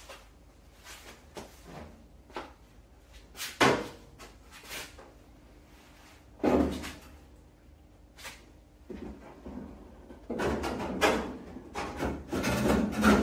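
Sheet-steel car fender being handled and fitted against the car's body: scattered clunks and knocks, the sharpest two about three and a half and six and a half seconds in, then a busier stretch of knocking, scraping and rubbing metal over the last few seconds as it is pushed into position.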